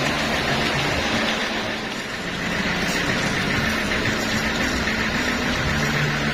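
Bandsaw sawmill running, a steady mechanical noise with a wavering low hum.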